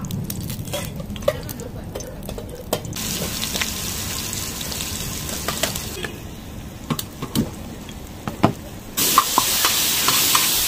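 Oil sizzling and spitting on a flat iron griddle, with sharp clicks and taps of a spatula on the iron. The sizzle turns louder and brighter about nine seconds in, as spice powder and chopped vegetables fry in the oil.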